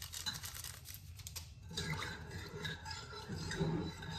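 Sweetener packets shaken and rustled into a cup for about the first second and a half, then a metal spoon stirring and clinking against a ceramic coffee mug.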